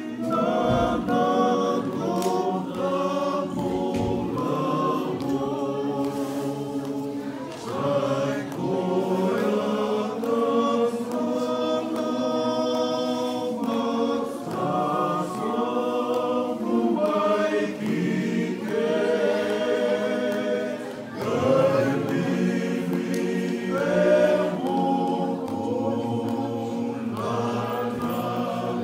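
A group of voices singing together without instruments, several pitches at once, in a long continuous song.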